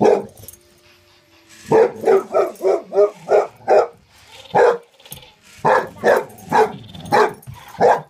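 Boxer dog barking repeatedly at a toy, short loud barks in quick runs: one at the start, a pause, then a rapid string of about eight, a single bark, and another string of about five near the end.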